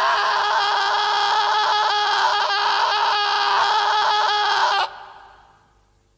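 A loud, harsh shrieking cry, dense and flickering, held for about five seconds, then cut short and fading away.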